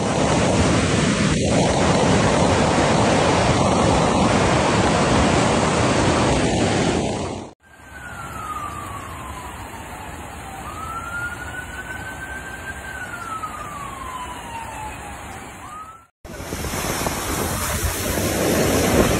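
Muddy floodwater rushing loudly for several seconds. After a break, a siren wails slowly down and up over a steady wash of water noise. Then water surges and splashes loudly as a vehicle drives through deep floodwater.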